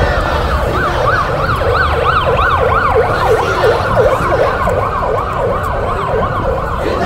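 Two or more electronic sirens sounding together, each sweeping up and down in pitch about three times a second, over a steady low rumble.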